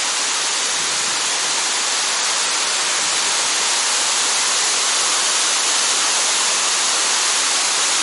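Steady rush of water pouring over the tiered cascades of a waterfall, an even hiss.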